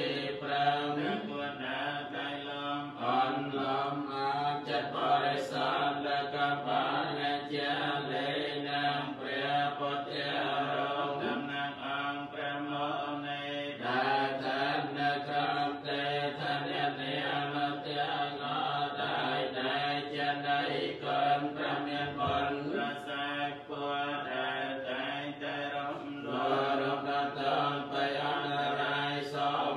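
Buddhist monks chanting a Pali recitation: a continuous, even-pitched chant carried by a steady low tone.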